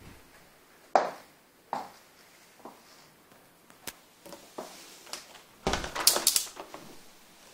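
Scattered single knocks and clicks in a small room, then a denser burst of clattering a little before six seconds in.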